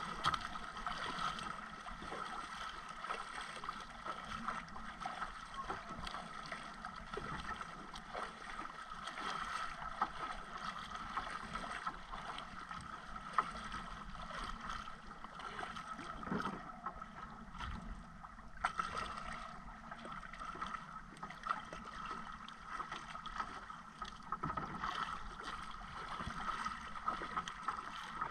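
Sea water sloshing and splashing against the hull of a small outrigger boat over a steady hum, with a few light knocks.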